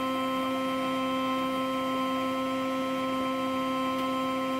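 Latherking hot-lather machine's motor running with a steady hum while it pushes out lather, freshly repaired and running fast like new.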